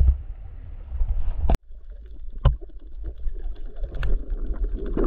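Sea water and wind rumbling low on the microphone at first. After an abrupt cut about one and a half seconds in, the muffled sound of a camera underwater: a low rumble of moving seawater with scattered clicks and knocks, louder near the end.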